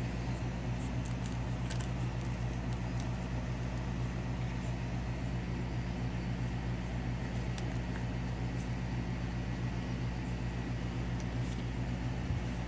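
Steady low mechanical hum, unchanging throughout, with a few faint ticks over it.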